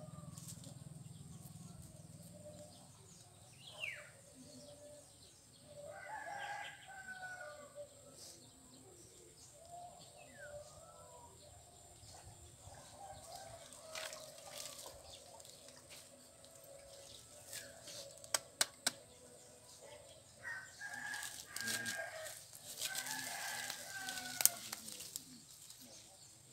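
Rooster crowing several times, each crow a second or two long with a falling tail, with a few sharp clicks in between.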